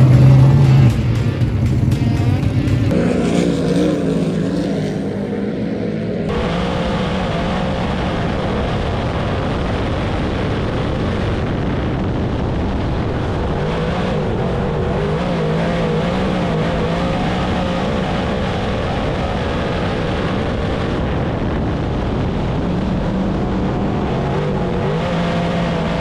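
Dirt modified race car engine at speed on a dirt oval: a car going by at first, then heard from inside the cockpit, its pitch rising and falling with the throttle through the laps.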